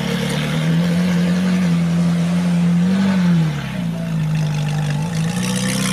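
Supercar engine running steadily, its pitch rising briefly about three seconds in and dropping back.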